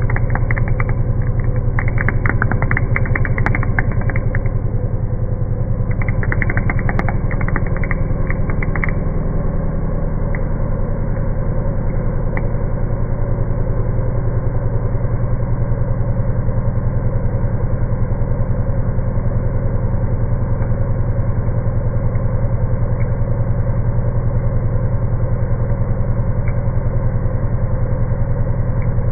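CNC mill spindle driving a four-insert 50 mm face mill across an aluminium block: a steady low hum with a fast even pulsing, and bursts of crackling during roughly the first nine seconds.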